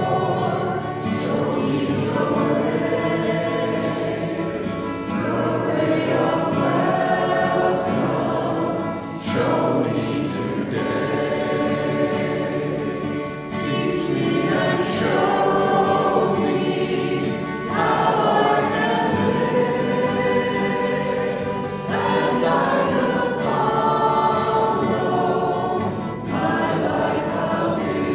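Congregation singing a hymn together, in sung phrases with short breaks between them.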